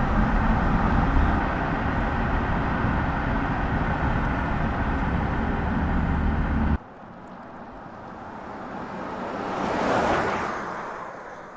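Steady rumble of tyre and wind noise from a car driving at speed, cut off abruptly about seven seconds in. Then the Mercedes EQS SUV, an electric car with no engine note, passes by: its tyre noise swells to a peak about ten seconds in and fades away.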